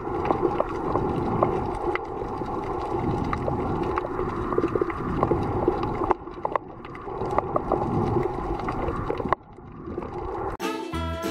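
Underwater sound on a coral reef: a steady muffled rumble and hum, scattered with sharp clicks and crackles. It dips briefly near the end.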